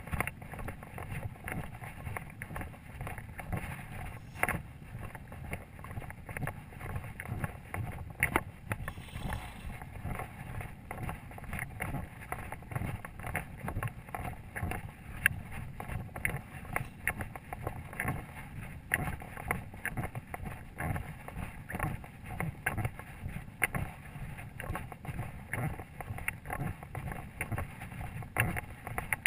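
Wind rumbling on a body-worn camera's microphone, with frequent short rustles and knocks from footsteps through dry grass and a loaded rucksack's gear jostling as the wearer walks.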